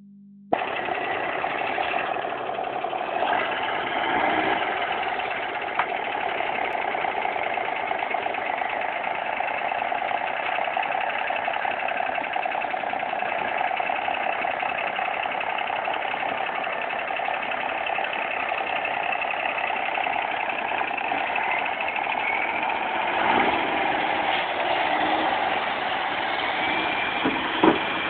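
Diesel engine of a cabover semi-truck running steadily at low speed as it pulls a loaded dump trailer through soft dirt, with a short knock near the end.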